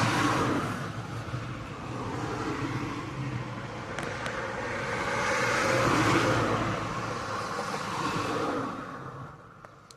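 Road traffic going by, a few vehicles in turn, each a rush of noise that swells and fades. It dies away near the end.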